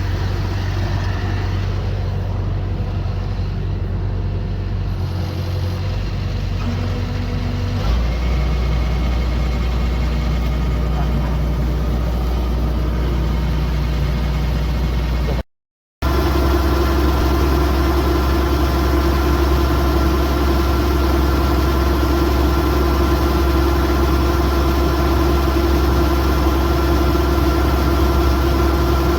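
Kubota DC108X combine harvester's diesel engine and machinery running steadily, a continuous low hum. The engine note shifts lower about eight seconds in; about halfway through the sound cuts out for half a second, then comes back louder with a steady whine over the hum.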